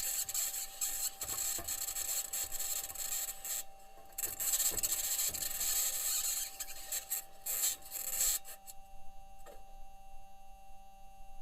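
Perseverance rover's metal wheels driving over Martian rock, picked up by its microphone: harsh scraping, squealing and rattling over a rough high-pitched hiss. About three-quarters of the way through it fades out, leaving a faint steady hum.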